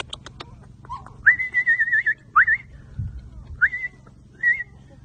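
Four short high whistles from a person: each jumps up in pitch and holds with a slight warble, the first about a second long and the rest brief. A few quick clicks come just before them at the start.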